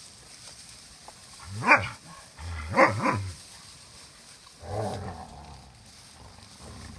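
Mother dog barking sharply at her puppies to wean them off nursing: three loud barks within about a second and a half, then a quieter, shorter bark-like sound near five seconds in.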